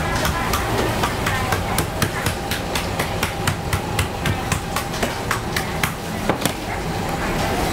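Rapid, even knocking, about four sharp strikes a second, over a steady background noise of the workshop; the knocking stops near the end.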